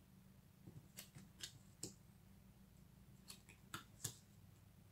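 Faint, scattered taps and clicks of small cardstock oracle cards being laid down on a bamboo slat mat, the loudest tap about four seconds in.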